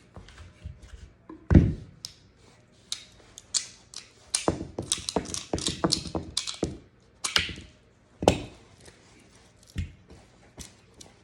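Clicks, taps and knocks of hard parts being handled while cleaning a Smith & Wesson M&P 9mm pistol: one knock early, a quick run of small clicks in the middle, then a few heavier knocks.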